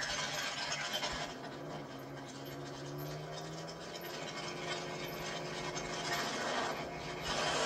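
Car engines idling, a low hum that rises slightly in pitch about three seconds in, under a steady rough hiss.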